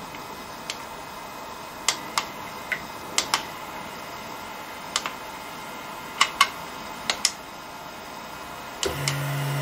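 About a dozen sharp clicks, singly and in quick pairs, from push buttons pressed on an electronic leadscrew's control panel while its test menu is set up. Near the end a stepper motor starts with a steady low hum as it turns the lathe's lead screw.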